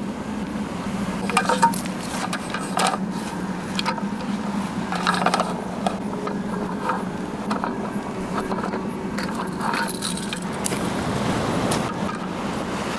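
Slatted roll-up camping table top clattering and scraping as it is unrolled and laid onto its folding frame, in irregular clicks and rattles. A steady low hum runs underneath.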